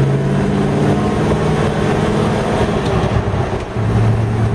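Holden Kingswood's 253 V8 running under load on a drive, freshly tuned and sounding much better. Its note eases off briefly about three and a half seconds in, then pulls steadily again.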